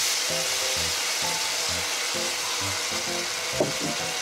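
Julienned carrots and yacon sizzling in a frying pan as they are stir-fried with chopsticks, with a short knock about three and a half seconds in. Background music plays throughout.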